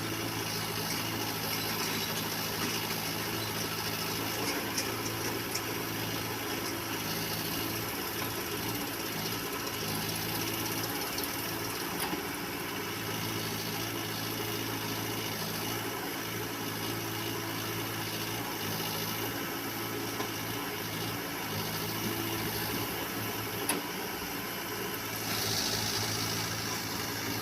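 Backhoe loader's diesel engine running steadily at an even pitch, with a few faint clicks.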